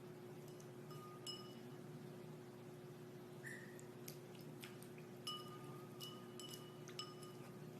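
Several faint, short clinks, each ringing briefly like light metal or glass being tapped, over a steady low hum.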